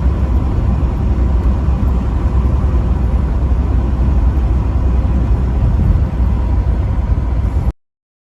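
Vehicle driving at highway speed: steady low rumble of engine and road noise, with no horn sounding. It cuts off abruptly near the end.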